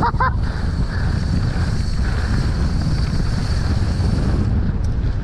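Wind buffeting the microphone of a mountain biker's camera while riding at speed: a steady low rumble, with a brief pitched squeak right at the start.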